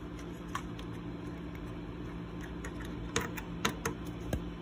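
A few small sharp clicks and taps of a screwdriver working the screws of a metal CPU-cooler backplate, one about half a second in and a quick run of three or four near the end, over a steady low hum.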